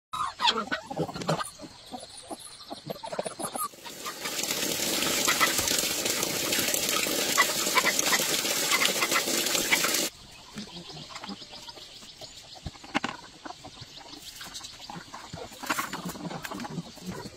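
Farm animals calling in short scattered bursts, with a loud steady rushing noise from about four seconds in that stops abruptly about ten seconds in.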